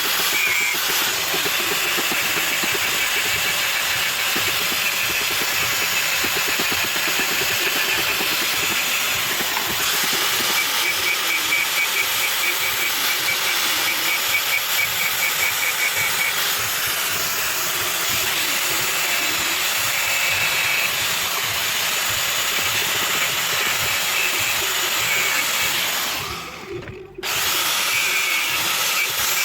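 A power tool running steadily with an even, rushing noise strongest in the high range. A faint fast ticking runs through parts of it, and it cuts out briefly a little before the end.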